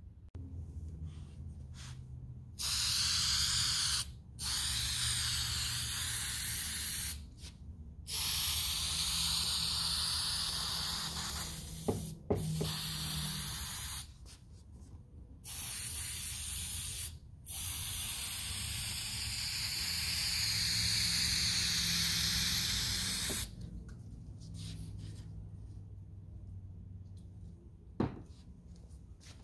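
Aerosol spray adhesive can spraying in about seven bursts, each from one to several seconds long with short breaks between, stopping well before the end. A low steady hum runs underneath, and there is a single sharp click near the end.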